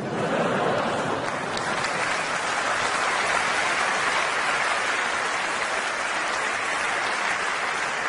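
Audience applauding, breaking out at once and holding steady.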